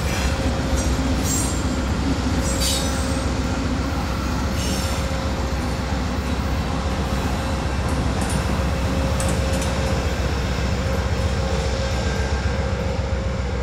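A string of Norfolk Southern diesel locomotives running light, with no cars behind them, passes close by: a steady heavy engine rumble and wheel noise on the rails. Short high squeals and clicks come from the wheels in the first few seconds.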